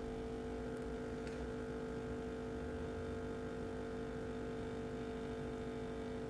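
A steady electrical hum, with two faint clicks about a second in.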